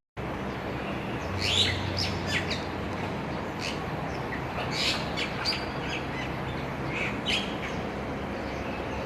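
Bali myna (Bali starling) giving a string of short, sharp calls at irregular intervals, over a steady background hiss.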